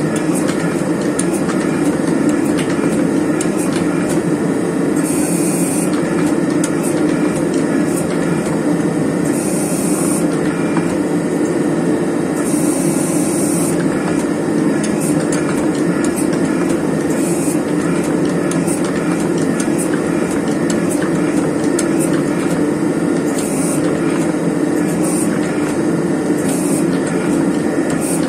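Forge running with a steady, even roar while a damascus billet heats in the flame, with frequent small crackles and brief high hissing bursts a few times.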